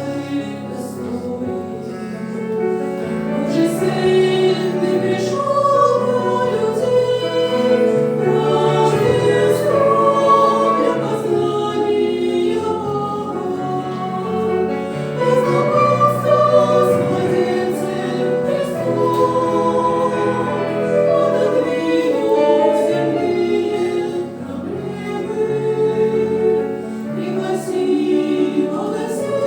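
Church choir singing a Russian-language Christmas hymn, several voices in harmony holding long notes phrase after phrase.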